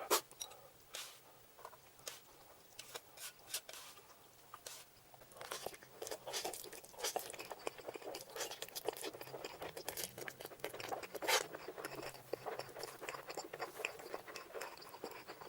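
Close-miked chewing of noodles: wet mouth clicks and smacks, sparse at first and then coming thick and fast from about five seconds in, with one louder smack about eleven seconds in.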